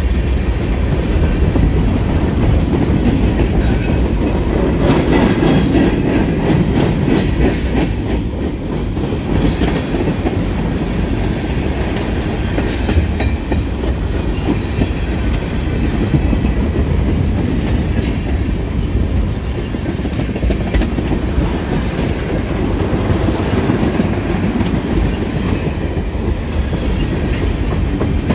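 CN freight train of tank cars and boxcars rolling past close by at speed: a steady, loud rumble of steel wheels on the rails, with repeated clicking as the wheels cross rail joints.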